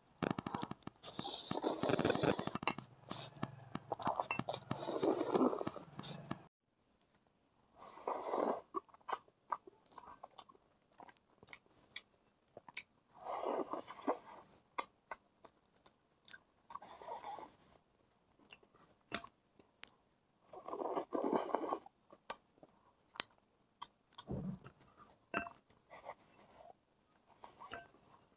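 A person slurping noodles off a fork: about six slurps a few seconds apart, with chewing and small clicks of the fork against the bowl between them.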